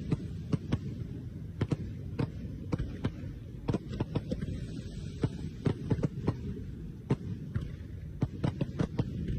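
Fireworks going off: a run of muffled, irregular bangs, about two or three a second, over a low rumble.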